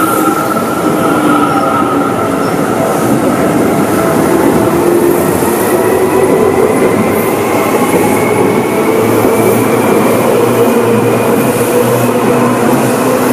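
Electric commuter train running close by on the rails, its motors whining in several tones that climb steadily in pitch as it gathers speed, over loud wheel-on-rail noise.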